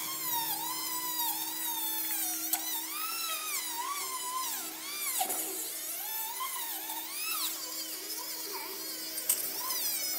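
Flexible-shaft rotary tool whining at high speed, its pitch dipping and rising as the small wheel is pressed onto the rusty metal of an air gun part. The whine fades after about seven seconds, and a couple of light clicks come near the end.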